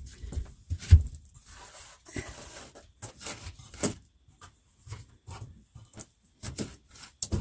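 Irregular knocks, clicks and light rattles from handling hard objects, the loudest knock about a second in.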